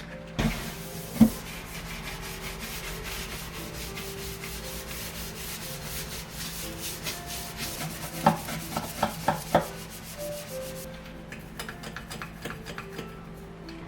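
Brisk, rapid rubbing against a surface, with a few sharp knocks about a second in and a cluster of knocks a little after the middle; the rubbing stops near the end. Faint background music runs underneath.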